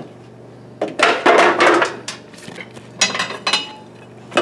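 Metal and hard plastic parts of a bulk candy vending machine clattering and clinking as the machine is closed and locked back up after the coins are emptied: two bouts of clatter, about a second in and again around three seconds.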